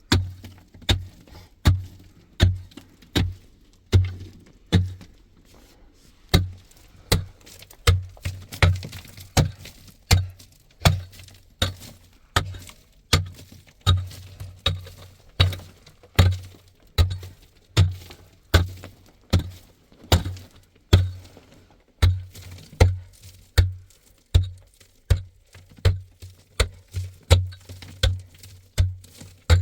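A tool striking hard ground or rock over and over, a heavy thud about every three-quarters of a second with brief pauses now and then, as in digging out a shelter.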